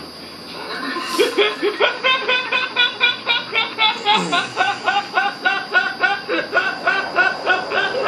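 A man's high-pitched laugh, breaking into quick, even pulses about three a second. It picks up about a second in after a short lull and keeps going.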